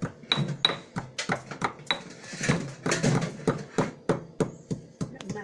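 Stone pestle pounding dried anchovies in a lesung batu, a stone mortar: repeated dull knocks of stone on stone, about three strikes a second.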